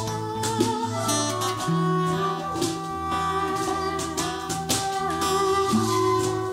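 Instrumental violin music layered with a loop station: plucked notes over sustained, overlapping tones and a low repeating line, with sharp attacks keeping a steady pulse.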